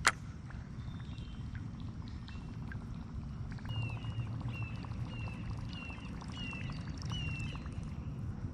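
Wind buffeting the microphone in a steady low rumble, with a sharp click at the very start. Through the middle a bird calls a run of about eight short, slightly falling chirps, roughly two a second.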